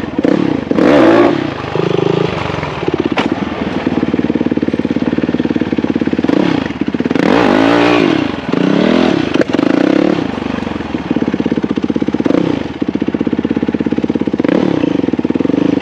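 Small off-road vehicle engine idling steadily and being revved up and back down several times, with the longest run of revs about halfway through.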